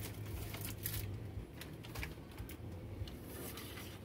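HO-scale slot cars running on a plastic track: a steady low electric hum with scattered light clicks and clatters.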